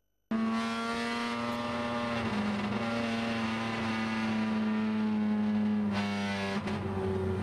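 Race car engine heard from inside the cabin, held at high revs on the track with only small changes in pitch, dipping slightly near the end. The sound cuts in after a brief silent gap at the very start.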